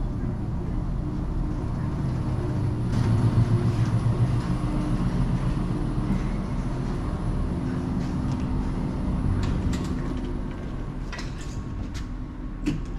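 Steady low rumble of a running vehicle engine, swelling around three to four seconds in, with a few sharp clicks near the end.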